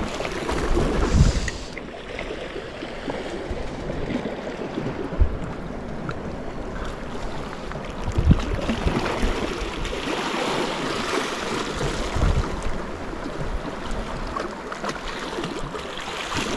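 Sea waves washing and splashing against the base of a rocky shore, with a few louder low surges.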